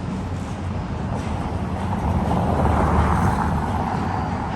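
City street traffic: a steady low rumble, with a passing vehicle that swells to its loudest about three seconds in and then eases off.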